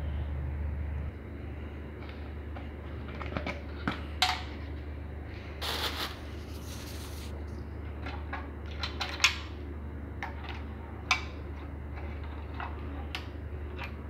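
Scattered light clicks and knocks of parts of an electric water heater being handled, with a brief rustle about six seconds in, over a steady low hum.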